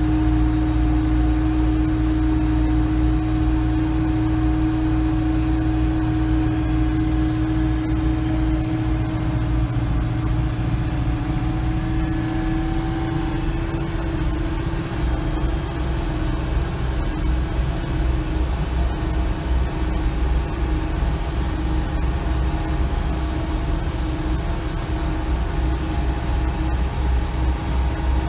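Branson 5025C compact tractor's diesel engine running at a steady speed while driving, heard from the driver's seat. Its note shifts slightly about halfway through.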